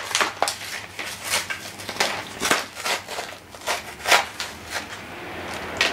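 Clear plastic blister packaging being pulled open and handled by hand, crackling and snapping irregularly.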